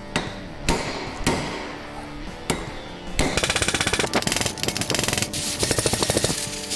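A hand hammer striking a steel punch about five times, working a seized rototiller tine loose on its shaft. Then, from about three seconds in, a handheld gas torch burns with a loud hiss and a rapid flutter as it heats the stuck part. Music plays faintly underneath.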